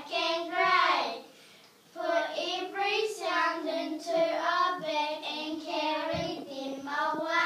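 Children's voices singing, held pitched notes with a short break about a second in.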